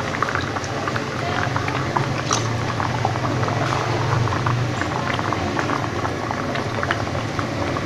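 Water boiling in a wok used as a steamer, a steady bubbling and crackling, while batter is poured in a thin stream into the cake pan sitting in the water.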